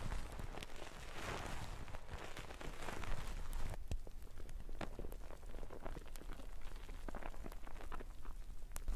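Hands kneading a thick shampoo lather through wet hair: squelching foam and a fine crackle of many small clicks. The crackle is busy for the first few seconds and turns sparser, with scattered ticks, after about four seconds.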